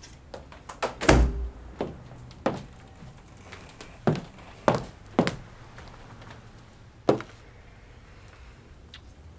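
A string of separate knocks and thuds, the loudest a heavy, deep thump about a second in, then about half a dozen sharper knocks spread over the next six seconds.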